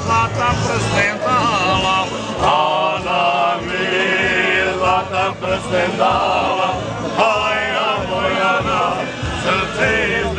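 Several men singing a folk song together, with held, wavering notes sung in phrases.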